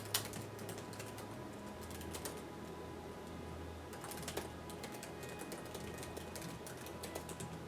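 Typing on a keyboard: a run of irregular clicks, with soft background music underneath.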